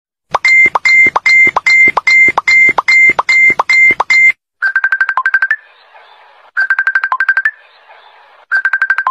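Electronic music of high beeps: a string of about ten even beeps in the first four seconds, then three short bursts of rapid trilling beeps about two seconds apart.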